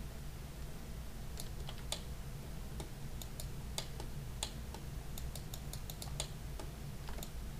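Irregular clicking of a computer keyboard and mouse, single clicks and short quick runs, over a steady low hum.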